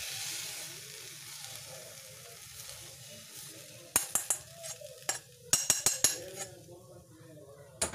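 A steel spoon scooping sweetened rice flakes out of a pan into a glass bowl. A soft scraping hiss comes first, then from about four seconds in the spoon clinks and taps sharply against the pan and bowl several times.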